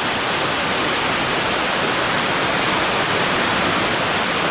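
Waterfall pouring steadily: an even, loud rush of falling water.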